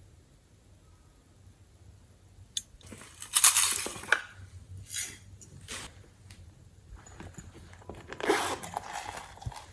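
Slime being pressed and kneaded by hand, giving crunchy, crackly squishes in a few bursts: a loud one about three seconds in, two short ones after it, and another near the end.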